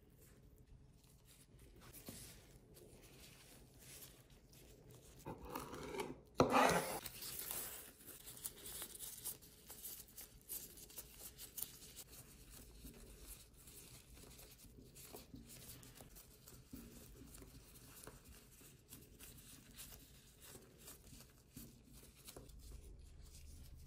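Gloved hands working sushi rice onto a sheet of nori: soft rustling, rubbing and light pats, with one louder crinkling, tearing rasp about six seconds in.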